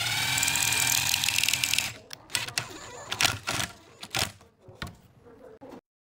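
Cordless impact driver spinning up and driving a long wood screw into pine, its motor whine joined by a rapid hammering rattle as the screw seats, stopping about two seconds in. After that, a few scattered clicks and knocks.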